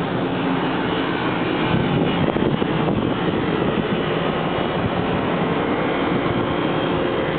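Long Island Rail Road M3 electric train running close by: a steady hum with a few faint held tones, neither rising nor falling.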